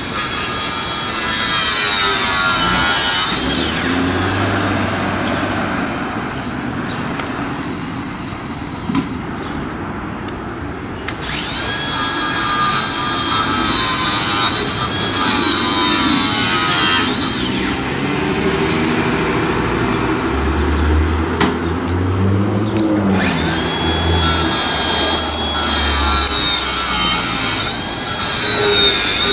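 A handheld power tool cutting metal at a payphone pedestal in three bursts of a few seconds each, a high wavering whine over a harsh grinding hiss.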